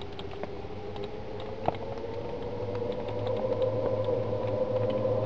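A long, steady howling tone that slowly rises in pitch and grows louder, with scattered faint clicks over a low hum.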